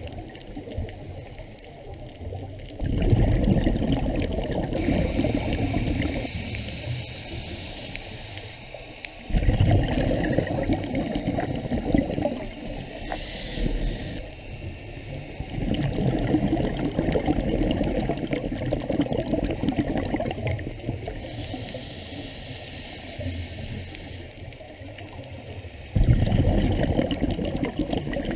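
Scuba diver's exhaled bubbles from the regulator, heard underwater: a loud bubbling rush that starts suddenly and lasts several seconds, four times, with quieter water noise between.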